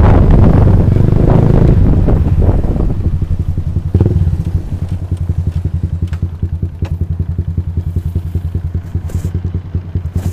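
Motor scooter ridden, then stopped: wind rushes over the microphone for the first few seconds as the scooter slows. From about four seconds in, the engine idles with an even, quick pulsing beat, with a few light clicks over it.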